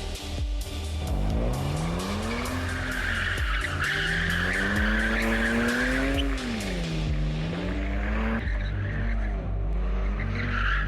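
BMW E90 328i's straight-six engine revving hard, the revs climbing and falling several times, with tyres squealing as the automatic car is pushed into a small drift. Background music runs underneath.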